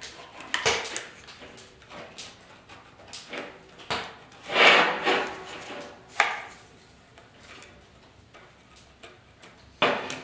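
Cardboard being bent and creased by hand around a clamped edge, with irregular rustling and scraping. The longest scrape comes about four to five seconds in, and there are sharper crackles near the start and after six seconds.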